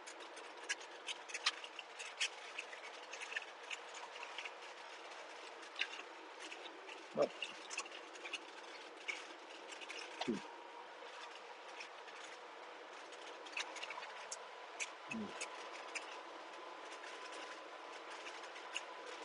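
Steady in-cab running noise of a 1995 Subaru Sambar mini truck at road speed, with a faint steady whine and many small clicks and rattles. Three brief downward swoops come through the middle.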